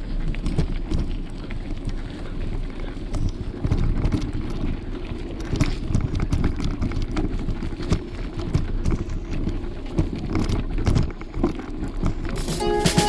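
Mountain bike rolling over a bumpy dirt-and-grass trail: a continuous low rumble from the tyres and wind, with frequent rattles and knocks from the bike over the bumps. Music with a beat comes in near the end.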